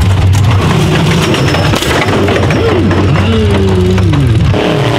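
Rock bouncer buggy engine revving hard, its pitch swinging up and down in the second half, mixed with rock music.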